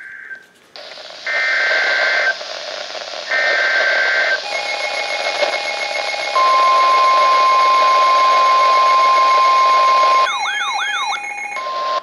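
Weather radio receiving a NOAA Weather Radio warning alert over static hiss. Two raspy one-second digital header bursts come first. Then the long, steady warning alert tone sounds, is broken near the end by a brief warbling siren-like tone, and resumes.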